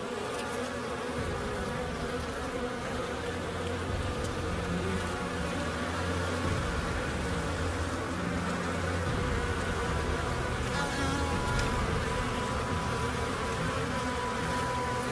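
A dense swarm of Africanized honey bees buzzing around an opened hive, growing slightly louder: the colony is attacking within seconds of being disturbed.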